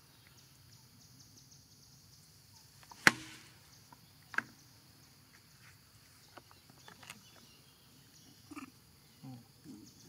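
Two sharp knocks about a second and a half apart, the first the loudest, then scattered small clicks. Near the end come a few short, soft grunt-like calls from baby macaques.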